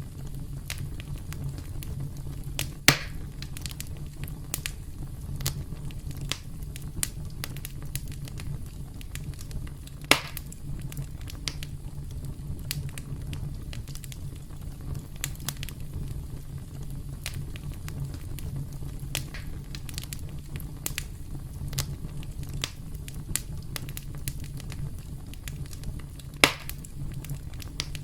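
Campfire crackling: a steady low rumble of burning wood under frequent small crackles, with three louder sharp pops, about three seconds in, around ten seconds in, and near the end.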